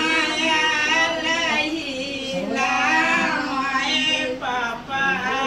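A woman singing a melody in a high voice, in long held notes that waver in pitch, with brief breaks between phrases.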